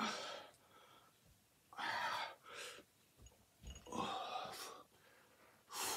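A man breathing hard, out of breath from sets of heavy dumbbell curls: about five loud, rushing exhales at uneven gaps of one to two seconds.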